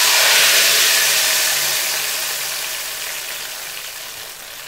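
Hot ghee with green chillies poured over a pot of haleem as a tarka, sizzling loudly and then slowly dying away.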